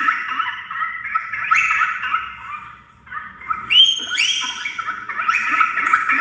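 Dolphins whistling underwater: many short, overlapping rising whistles, thinning out for a moment about three seconds in and then picking up again.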